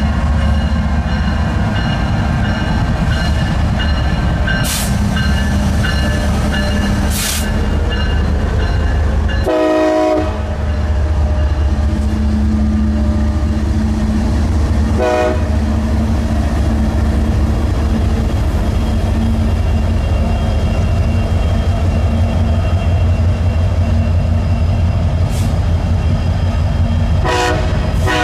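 Union Pacific diesel-electric freight locomotives passing close by with a heavy, steady engine rumble, followed by double-stack intermodal cars rolling past. A short horn blast sounds about ten seconds in, with brief horn toots later.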